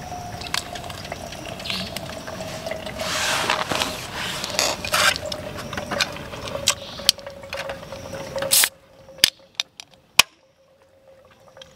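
Kettle on a gas camp stove: a steady hiss with a thin, slowly falling singing tone. The hiss cuts off abruptly about eight and a half seconds in while the faint tone lingers, followed by a few sharp clicks.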